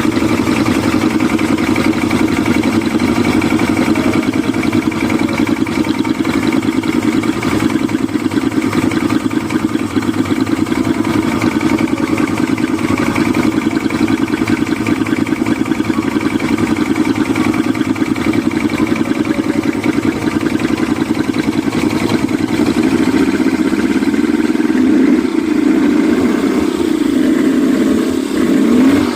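Yamaha 200 hp outboard motor running on a test run, holding a steady speed, then revved up and down a few times near the end.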